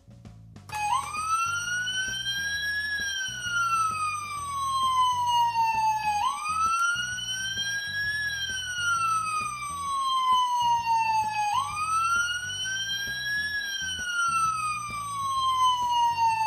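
Electronic siren of a Fireman Sam Mountain Rescue 4x4 toy: a wailing tone that starts just under a second in, rises over about two seconds, then falls slowly, repeating three times.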